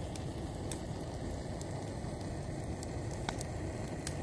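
Campfire crackling with a few sharp pops, over the steady hiss and roar of gas canister camp stoves burning.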